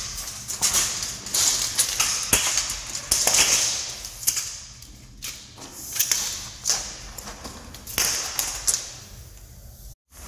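A steel tape measure being pulled out and handled along a heavy power cable on a concrete floor: bursts of rustling and scraping with a sharp knock a couple of seconds in.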